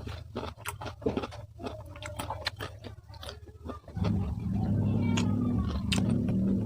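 Close-up chewing and crunching of crunchy food, many quick crisp bites. About four seconds in, a steady low engine-like hum starts and runs on louder than the chewing.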